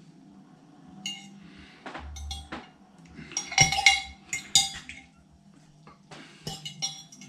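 A utensil clinking and scraping against the crock of a slow cooker in several short clusters of light knocks while bay leaves are picked out of the cooked pork.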